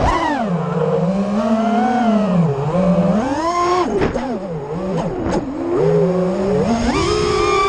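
FPV racing quadcopter's brushless motors and propellers whining as heard from its onboard camera. The pitch swings up and down with the throttle through freestyle moves and climbs sharply near the end. A couple of brief clicks come near the middle.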